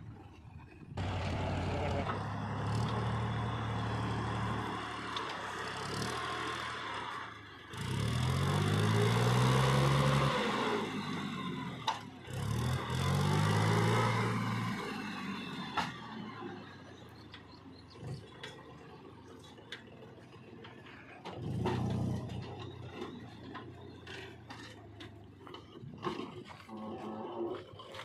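Diesel engines of a JCB 3DX backhoe loader and a Powertrack tractor running, revving up and down twice in the middle, then settling to a quieter run with a few knocks.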